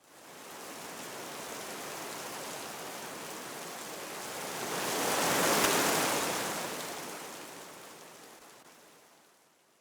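Rain sound: a steady hiss of falling rain that swells to its loudest about five and a half seconds in, then fades away toward the end.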